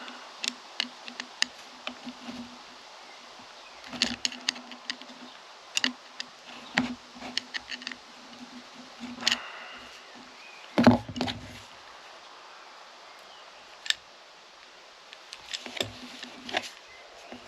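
Scattered small clicks and taps of hand tools on a chainsaw piston as its wrist pin and circlips are worked loose. There is a louder clatter about eleven seconds in.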